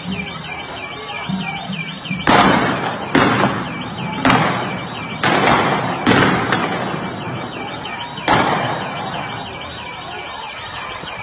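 Seven loud, sharp bangs in quick succession, each echoing off the street, over a warbling electronic alarm that repeats throughout.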